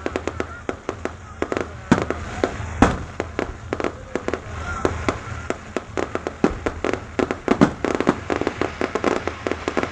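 Aerial fireworks going off: a dense, irregular run of bangs and crackling reports, with the loudest bangs about two and three seconds in.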